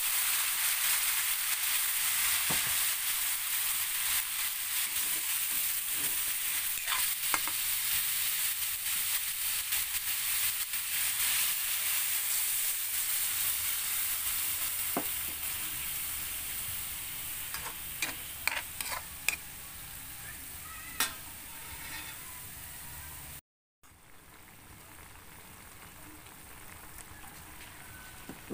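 Food sizzling in a hot pan, with scattered clicks and scrapes of a utensil stirring it. The sizzle slowly eases, breaks off briefly near the end and goes on more quietly.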